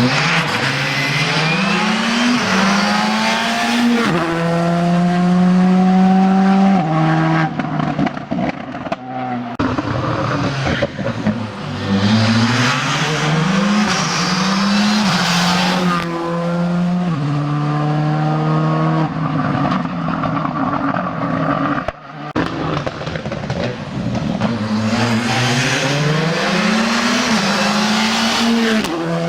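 Rally cars at full throttle, one after another, each accelerating hard: the engine pitch climbs, drops at quick gear changes and climbs again, with a loud hiss during the hardest pulls.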